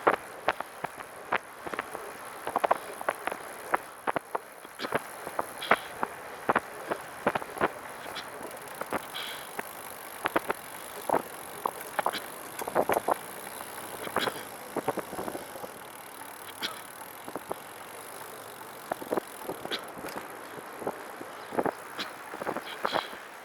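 Catrike 700 recumbent trike rolling with an irregular, random clicking rattle from the rear near the back wheel, over a steady hiss; the rattle's cause is unknown.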